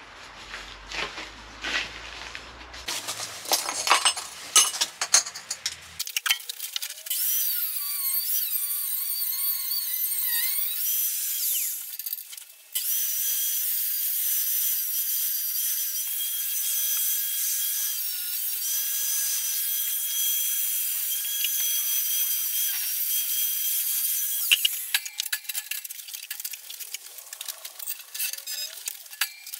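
A power tool cutting steadily for about eighteen seconds, with a short break partway through, as a too-tight spacer at the bottom of a steel gate is shortened. Knocking and clattering come before and after the cut.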